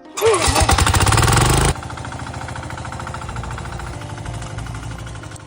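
Small engine of a rotary tiller, a mini cultivator working the soil. It runs loud and fast for about a second and a half, then drops to a quieter, steady, rapid running.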